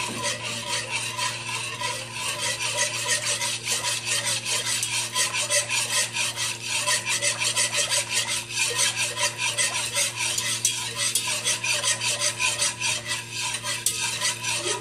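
Metal spoon stirring granulated sugar into a little water in a pot, scraping round the bottom in quick, even strokes while the sugar dissolves.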